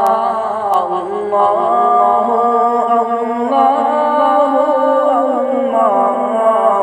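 Islamic nasheed sung a cappella: layered voices hold long, wordless melodic notes over a steady low hummed drone.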